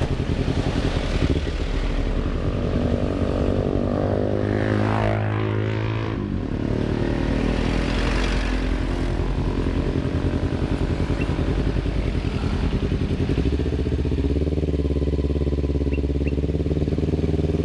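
Kawasaki Ninja 250 FI parallel-twin engine through a DX Generation RVR short aftermarket exhaust, ridden in slow traffic, its note rising and falling with the throttle.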